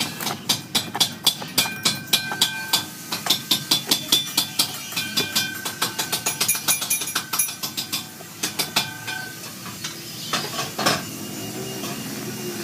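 Hammer blows on metal, about three or four a second, each ringing briefly. They stop about nine seconds in, with a couple of last strikes shortly after.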